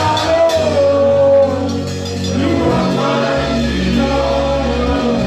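Gospel worship music: a singer holding a melody over a keyboard accompaniment with sustained bass notes.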